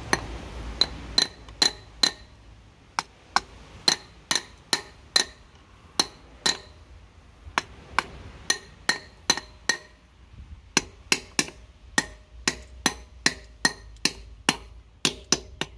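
Ratchet wrench clicking in short back-swings, one sharp metallic click at a time, about two or three a second with brief pauses, as a bolt on the tractor engine is done back up.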